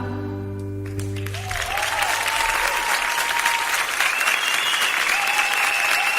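The song's last sustained chord fades out, and about a second and a half in the applause of a live audience takes over and carries on.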